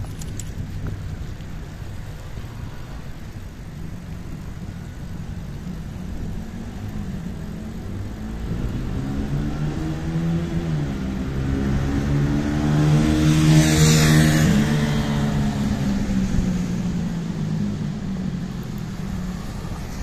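A heavy truck passes close by on a wet road: its engine rumble builds over several seconds, peaks about two-thirds of the way through with a hiss of tyres on wet pavement, then fades away. A steady rush of wind and road noise runs underneath.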